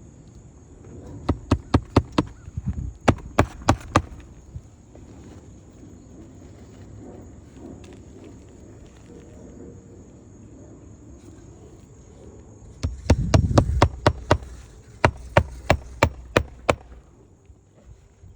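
Hammer nailing a replacement asphalt roof shingle into place: two runs of quick, sharp blows, one a second or so in and another about two-thirds of the way through.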